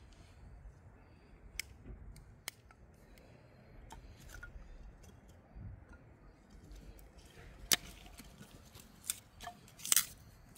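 Scattered light clicks and knocks of thin dry wooden kindling sticks being handled and stacked on the ground to build a small fire. The sharpest clicks come about eight and ten seconds in, as the kindling catches.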